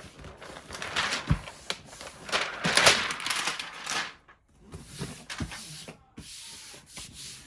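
Rubbing and smoothing an adhesive paper print flat onto corrugated plastic board to push out air bubbles: a run of dry swishes and rubs, loudest about three seconds in.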